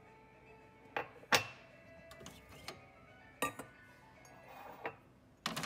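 A mug being handled and set down, knocking and clinking against hard surfaces about five times, the loudest about a second and a half in with a short ring. Faint music plays underneath.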